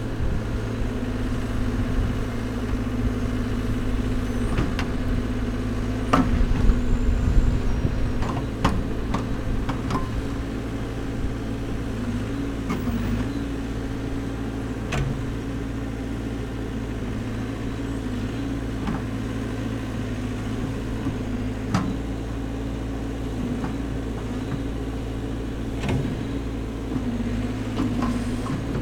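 Caterpillar backhoe loader's diesel engine running steadily as the backhoe arm works. Its note dips briefly several times as it takes load, with scattered sharp clanks from the bucket and linkage. About six to eight seconds in there is a louder rumbling stretch.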